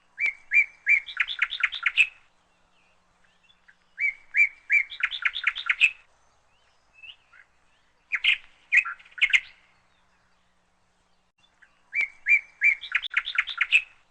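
A songbird singing four short phrases, about four seconds apart. Each phrase is a few clear chirps followed by a quick rising trill.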